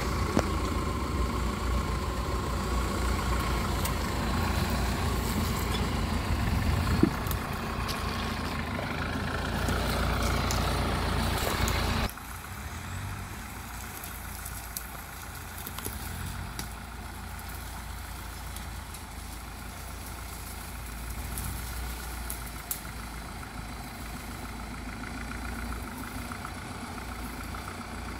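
Mahindra off-road jeep engines running at low revs as the jeeps crawl over rocks. About twelve seconds in the sound cuts to a quieter, steady engine hum.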